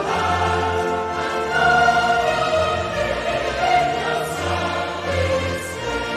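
Choir singing a British anthem with orchestra, in long held notes.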